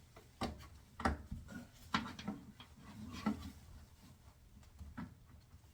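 Hand work on a washing machine's front panel: about five separate sharp clicks and knocks, with quieter rubbing and handling in between.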